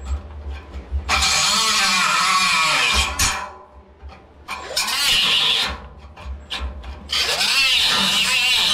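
Small handheld cut-off grinder cutting steel in three bursts, starting about a second in, again about halfway, and once more near the end. Its whine dips and rises as the disc bites into the metal.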